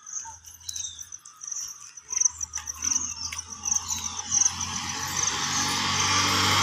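Insects chirping in a steady, evenly pulsing high trill. From about halfway through, a motor vehicle on the road approaches, growing steadily louder until it is the loudest sound.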